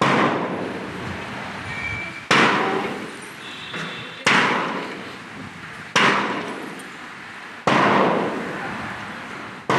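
A sharp crashing strike repeated about every two seconds, each one ringing away slowly before the next. It is the beat that keeps time for a group PT drill.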